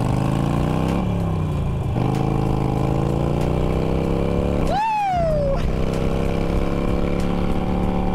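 Harley-Davidson Sportster's V-twin engine through aftermarket exhaust pipes, accelerating under way: the pitch climbs, dips around a gear change between one and two seconds in, climbs again, then settles to a steady run. A rider's 'Woo!' about five seconds in.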